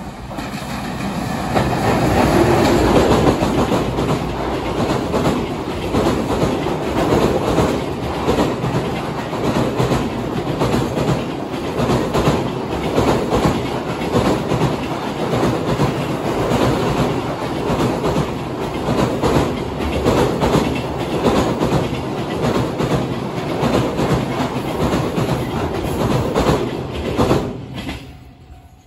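A container freight train hauled by an EF210 electric locomotive passing over a railway bridge, its wheels clattering steadily over the rail joints. The sound builds about a second in, is loudest in the first few seconds, holds steady and fades out near the end.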